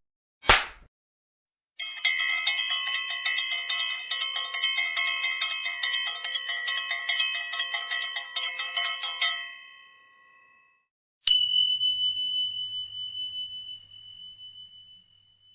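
A short click, then a bell rung rapidly over and over for about eight seconds. After a brief pause, a single high ringing tone is struck and slowly dies away.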